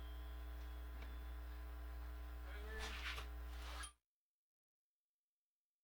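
Steady low electrical hum with faint room noise and a few soft rustles near three seconds, then the sound cuts off to dead silence about four seconds in.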